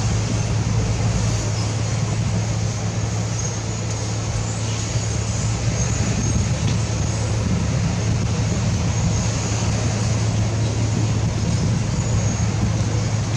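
Diesel engine of heavy construction machinery running steadily: a constant low drone under an even wash of mechanical noise.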